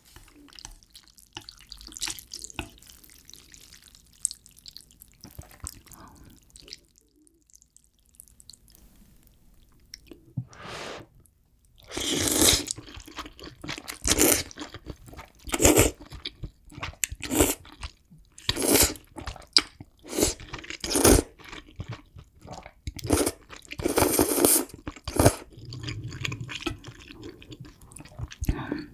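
A person slurping ramyeon noodles from kimchi stew and chewing wetly, close to the microphone. The first ten seconds or so hold only faint small sounds of chopsticks working in the pot. Then loud slurps and chews come in quick succession, about one a second.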